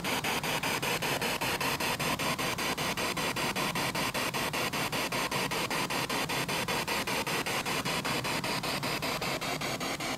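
Ghost-hunting spirit box sweeping through radio stations: steady hiss of static chopped into rapid, even pulses, several a second.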